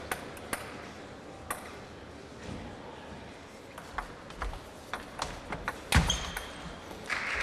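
Table tennis ball clicking: a few single bounces, then a quick rally of ball on bats and table, ending in a louder thud about six seconds in. Audience applause starts just before the end.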